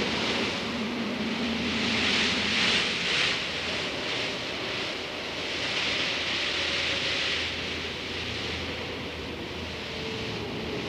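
Desert wind gusting, with blown sand, as a rushing hiss that swells and eases several times.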